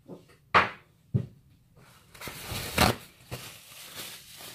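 Kitchen handling noises: a sharp knock about half a second in, a lighter knock a second in, then a rustling clatter near the three-second mark.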